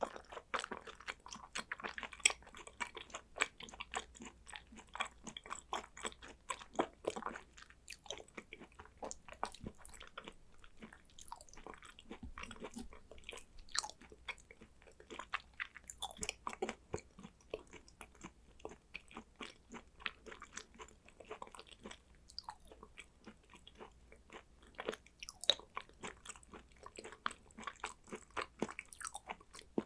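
Close-miked chewing of thinly sliced raw hanwoo beef: a dense, irregular run of sharp mouth clicks and smacks, with no pause.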